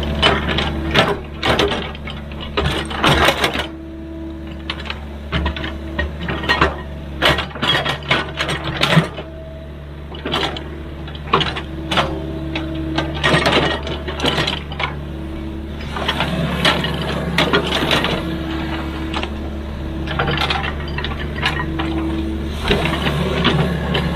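Excavator engine running steadily, with many irregular sharp clanks and knocks over it.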